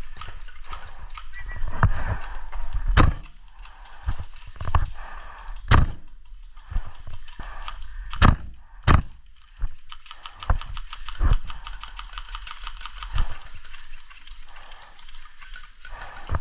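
Airsoft gameplay: four sharp cracks of airsoft shots, the last two close together, among softer knocks and footfalls of the player moving.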